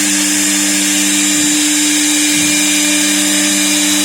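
CNC router spindle running steadily, cutting letters: an even motor tone with a hiss over it, its lower note dipping briefly twice.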